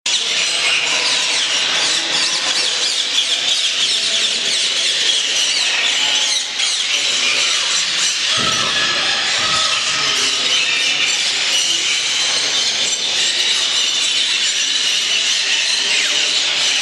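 Many caged parakeets and parrots calling at once: a dense, continuous chatter of overlapping high calls.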